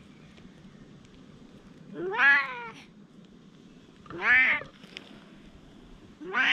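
A cat meowing three times, about two seconds apart; each meow rises and then falls in pitch, and the third starts near the end.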